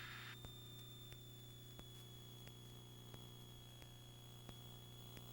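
Near silence: a faint steady hum with a thin steady high whine and a few faint clicks.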